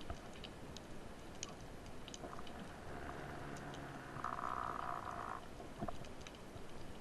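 Underwater ambience: a steady hiss with scattered sharp clicks and crackles. A muffled buzzing tone comes in about three seconds in and fades out near the end.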